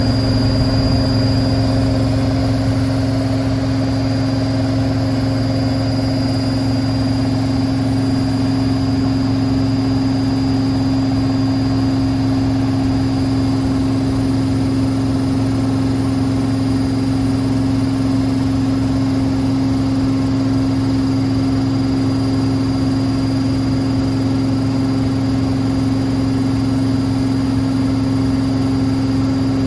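Hotpoint WML540 Aquarius washing machine in its final spin at steady top speed with the door open: the drum and motor give a steady hum with a high whine above it.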